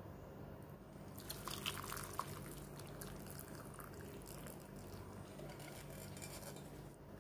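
Clear beef soto broth poured from a pot over beef chunks and vegetables in a bowl, splashing and trickling. It starts about a second in, is loudest for the first second or so, then thins to a trickle that stops near the end.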